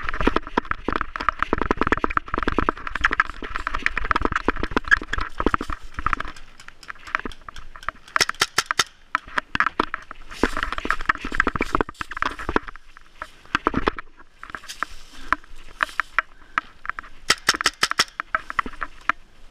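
Fast footsteps crunching through dry fallen leaves, with gear rattling, for about six seconds. Then slower shuffling and rustling in the leaf litter, broken twice by quick clusters of sharp cracks.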